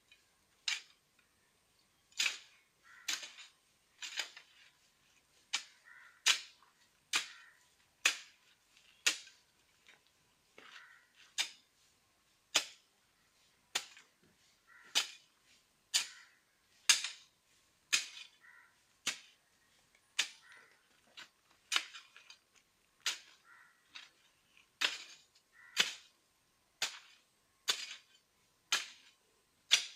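Repeated sharp strikes of a digging tool into soil, about one a second, some coming in quick pairs.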